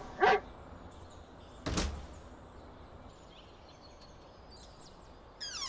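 A dog barks once just after the start, the last of a short series of barks. About two seconds in there is a single sharp knock, and near the end a falling swoop slides from high to low.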